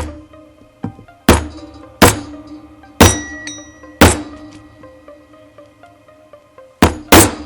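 Hammer tapping a rivet-setting tool to set rivets through a leather holster: a row of sharp strikes about a second apart, then a pause and two quick strikes near the end.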